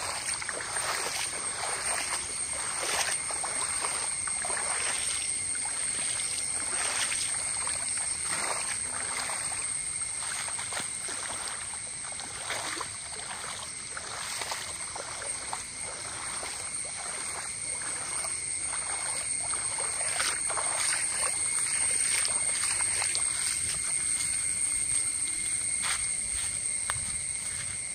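Muddy floodwater splashing and trickling, with many irregular splashes, over a steady high-pitched hum.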